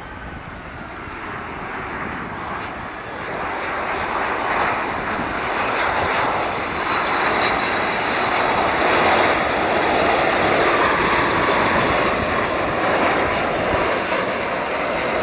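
Jet engines of a Boeing 787-9 Dreamliner on final approach with gear down, a steady jet rumble growing louder for about the first half as the airliner nears, then holding loud.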